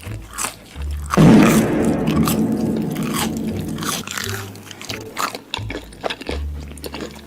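Close-miked eating: a person biting, crunching and chewing food, with many short crackles, loudest from about a second in.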